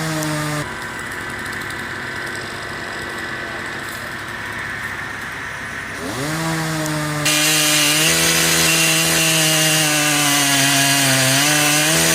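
Chainsaw engine running, then revving up about six seconds in and cutting into wood at full throttle, louder from there on, its pitch sagging slightly a few times under the load.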